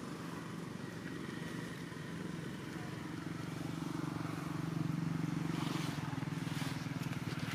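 An engine running steadily, a low hum with a fine even pulse that grows a little louder about halfway through.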